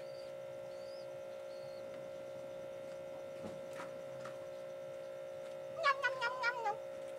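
Steady electrical hum. About six seconds in, a brief wavering, chattering call from an unseen animal.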